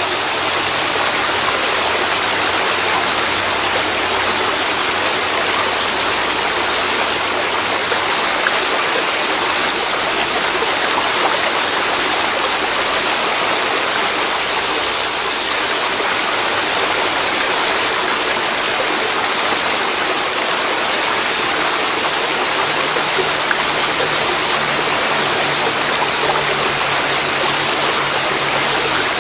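Waterfall pouring into a river: a steady, loud rush of water.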